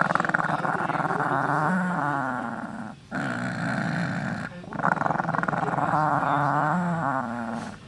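Small dog growling long and continuously, breaking off briefly about three seconds in and again a moment after four and a half seconds. She is growling to guard a ball she holds and won't give up.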